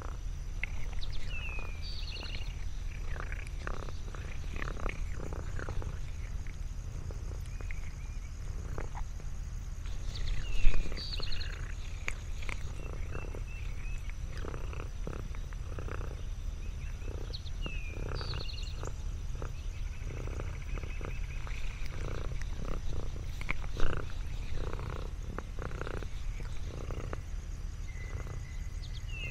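Domestic cat purring with a steady low rumble. Over it a bird repeats a short chirping phrase about every eight seconds, and there are light clicks and rustles, with two louder knocks.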